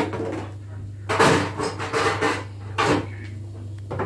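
Kitchen handling noises: a few brief rubbing and knocking sounds, clustered between about one and three seconds in, over a steady low hum.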